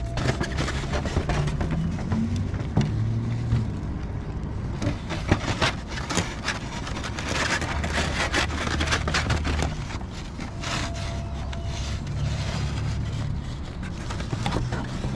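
A car running, with a steady low rumble and many short clicks and knocks.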